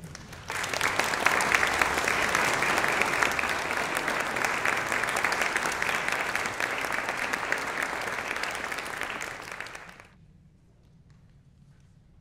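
Audience applauding, starting about half a second in and stopping fairly abruptly after about nine seconds.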